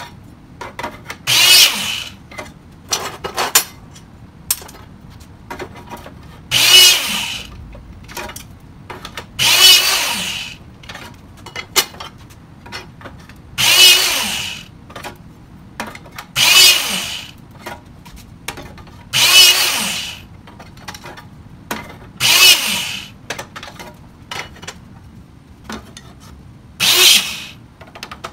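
Electric-hydraulic hole punch cycling about eight times: each time its motor and pump whine for under a second as the punch drives through 1/8-inch steel angle iron. Small clicks and clanks of the steel being handled come between the strokes.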